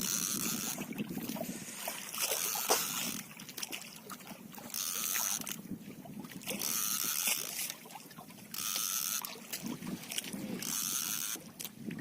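Spinning fishing reel cranked in short bursts of about a second, repeated every couple of seconds, the stop-and-go winding of working a light jig.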